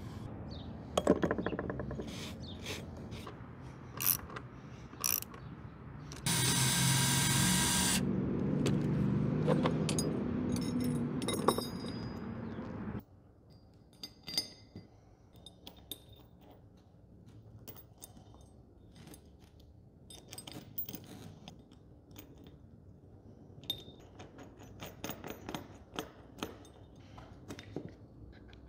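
Hand-tool work on a steel rail: clicks, knocks and scraping as a tap wrench is worked, with a loud steady mechanical noise for about two seconds near the middle. About halfway through the level drops suddenly to faint clinks of small metal parts (washers, nuts and a roller bracket) handled on a workbench.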